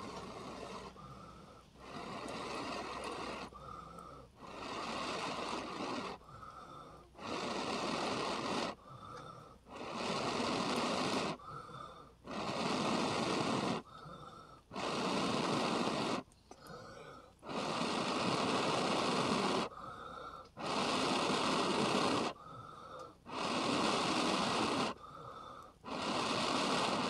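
A man blowing long, steady puffs of breath onto the smouldering ember inside a piece of tinder fungus, about ten blows with short pauses to breathe in between. The blowing feeds air to the glow to grow it into a bright ember.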